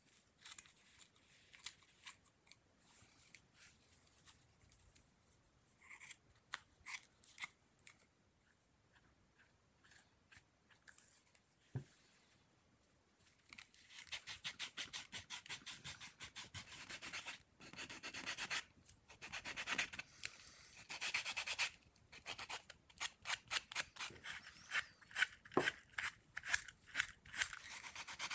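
Scissors snipping a strip of fur hide in scattered short cuts. About halfway through, this gives way to quick, repeated scratchy rubbing as hands work the leather wrapping on a feather fan's handle.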